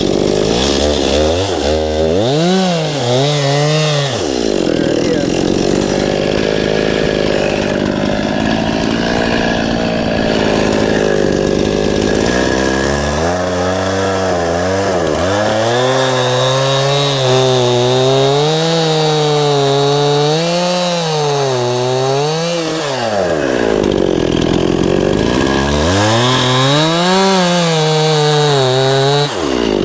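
Chainsaw cutting through pine, its engine revving up into the cut three times: briefly near the start, for about ten seconds in the middle, and again near the end. The pitch wavers up and down under the load of the wood and drops back to lower running between cuts.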